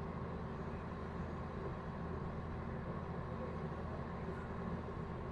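Steady low hum of a moored tugboat's machinery running, unchanging throughout.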